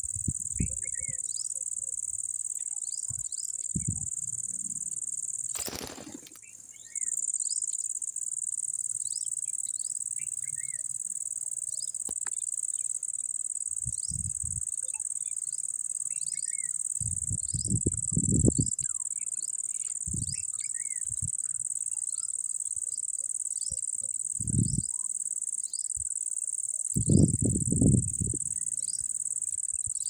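Insects chirring, a steady high-pitched buzz, with scattered faint short chirps over it. The buzz cuts out for about a second around six seconds in. A few low rumbles come later.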